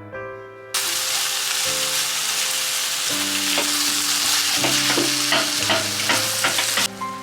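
Food frying in a pan, sizzling loudly, starting suddenly about a second in and cutting off near the end, with clicks and scrapes of a utensil stirring it in the second half. Soft piano music plays underneath.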